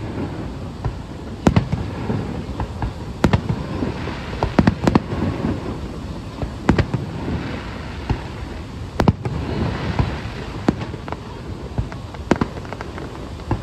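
Aerial firework shells bursting: sharp bangs about every one to two seconds, around eight in all, over a steady rumbling wash.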